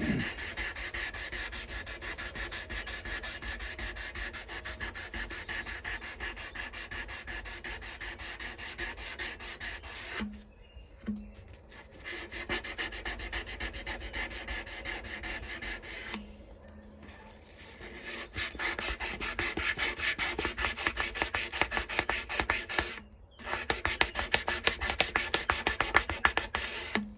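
400-grit sandpaper rubbed back and forth by hand over a steel knife blade, dry, in quick even rasping strokes. It stops briefly a few times and comes back harder near the end, polishing the blade toward a shine.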